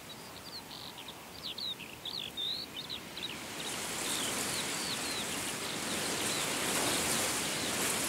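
Small birds chirping in quick, short calls that slide up and down, busiest in the first three seconds, over a steady hiss that swells louder and brighter about halfway through.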